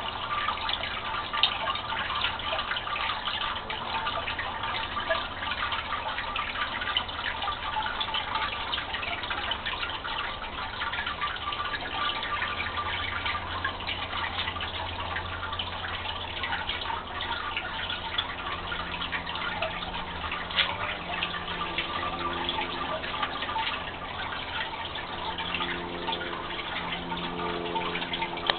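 Water running down the face of a rusted steel fountain panel and splashing onto river rocks in the basin below, a steady trickle thick with small drips and splashes.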